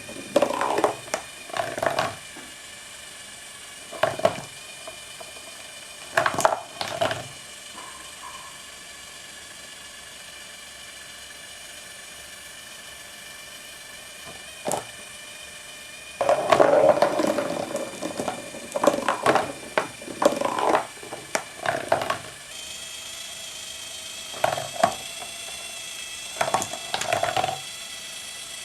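Marbles rattling and clattering in bursts as they are lifted and roll along a cardboard marble run, over the steady whine of the small electric motor that turns its cardboard disc. The longest stretch of clatter comes past the middle, lasting several seconds.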